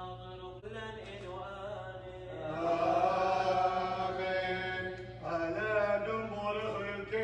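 Liturgical chanting: a single line of sung voice holding long, sliding notes, getting louder about two and a half seconds in and pausing briefly near five seconds, over a steady low hum.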